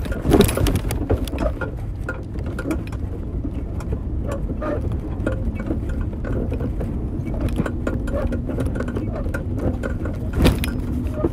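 Wind rumbling on a phone's microphone while riding a bicycle over a rough asphalt street, with scattered clicks and rattles, and a sharper knock about ten seconds in.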